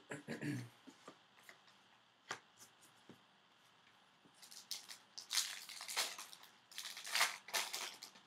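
Foil wrapper of a hockey card pack being torn open and crinkled by hand, a dense run of sharp rustles through the second half, after a few light taps and clicks.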